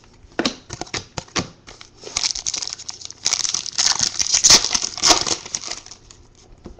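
Trading cards tapped and handled, then about three seconds of crinkling from the plastic and foil card packaging in the hands.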